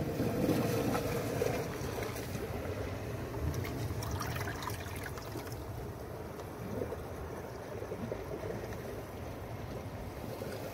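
Shallow seawater trickling and washing over rocks in a tide pool at low tide: a steady watery rush with scattered faint clicks.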